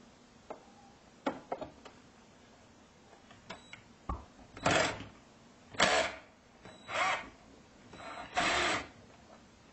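Phillips screwdriver working a screw in a steel amplifier chassis. A few small clicks and a knock come first, then four short scraping strokes about a second apart.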